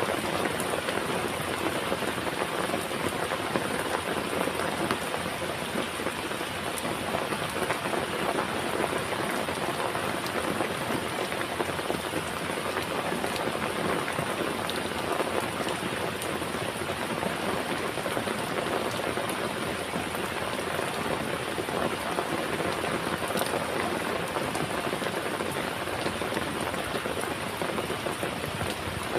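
Steady heavy rain falling, a constant wash with scattered raindrop patter.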